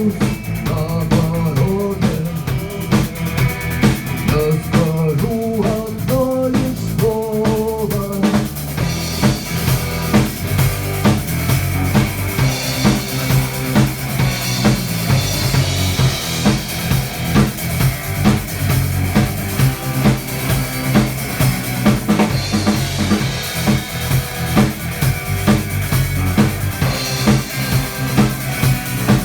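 A band plays an instrumental passage of a song: drum kit and bass keep a steady beat. A melodic lead line bends over the first eight seconds or so, then the full band comes in brighter with cymbals.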